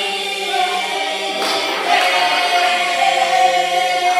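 A group of young voices singing together without accompaniment, holding long notes and moving to a new note about a second and a half in.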